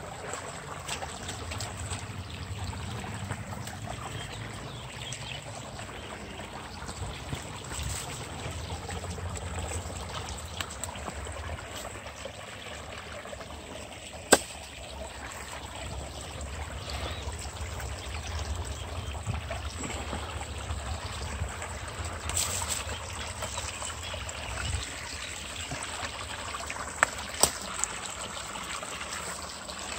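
Small forest brook trickling over stones, a steady water sound, with footsteps in dry leaves and twigs. A sharp snap about halfway through and a few clicks near the end.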